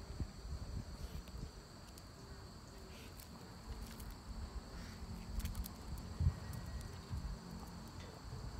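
Outdoor street ambience: a steady high insect chirring, over a low rumble on the microphone with scattered faint clicks and scuffs.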